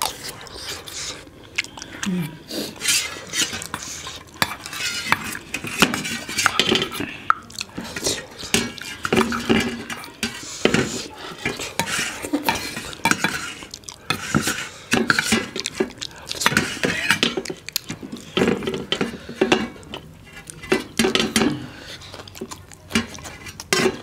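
Metal spoon scraping and clinking in stainless steel bowls and on steel plates, in many short, irregular clicks and scrapes, mixed with the mouth sounds of eating.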